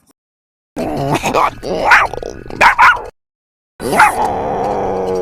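Cartoon dog sound effects for Goddard, the robot dog, voiced by a voice actor: a run of several sharp, pitched dog-like barks and yips, then after a short pause a second sound that sweeps up in pitch and then holds one steady note.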